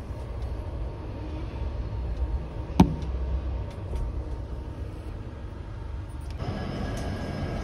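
Low, steady rumble of a passenger train at the platform, with one sharp click about three seconds in.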